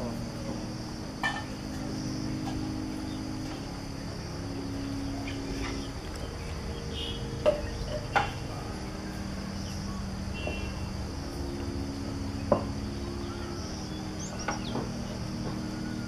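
Insects chirring in a steady high drone, with a few sharp clicks, the loudest two near the middle and one later on.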